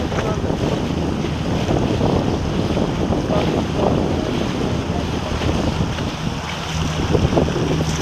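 Wind buffeting the microphone over water rushing and splashing past a moving boat's hull, with a low steady hum underneath.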